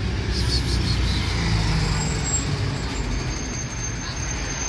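Low, steady rumble of a motor vehicle's engine running in the street, with a thin high tone joining about three seconds in.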